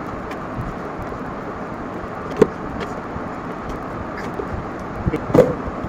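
A paint can lid being pried open with a metal tool: one sharp click about two and a half seconds in and a few knocks near the end as the lid comes loose, over a steady rushing background noise.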